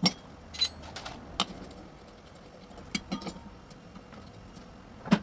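A few scattered metal clicks and clinks as a washing machine's drive pulley is seated on the drum shaft and a spanner is fitted to its centre bolt.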